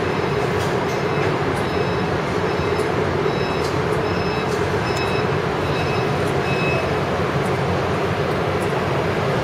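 Steady mechanical hum and rumble of heavy machinery, with a string of short, faint, high beeps repeating through it.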